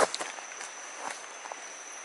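A steady high insect buzz, with a few crackling rustles, the loudest cluster right at the start and a few lighter ones after.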